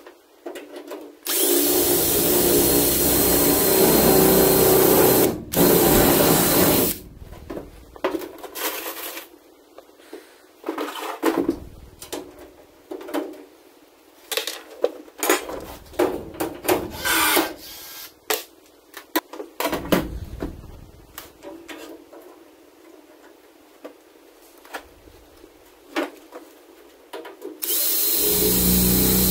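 Cordless drill running in two bursts of a few seconds each while drilling aluminum boat framing, followed by a string of sharp knocks and clatter of metal and tools being handled. The drill starts again near the end.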